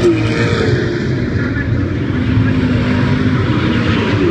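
Speedway saloon car engines running together on the dirt track, a steady loud drone with one engine note falling as a car goes by right at the start.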